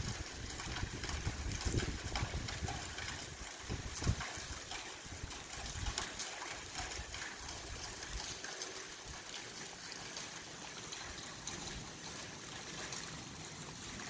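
Steady rain falling, an even hiss dotted with small drop patters. A low rumble sits under it through the first half and fades out after that.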